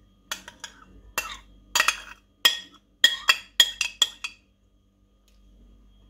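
Metal spoon scraping and knocking against a glass bowl while grated carrot is pushed out of it. About a dozen ringing clinks, which stop about four seconds in.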